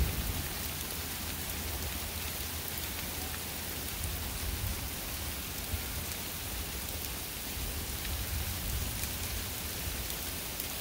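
Heavy rain mixed with small hailstones falling: a steady hiss with faint scattered ticks, over a low rumble.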